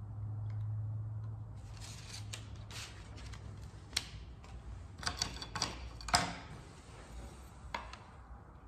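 Hand work at a bench on sheet aluminum: a scattering of light clicks and snips, with sharp taps about four and six seconds in. A low hum fades out in the first two seconds.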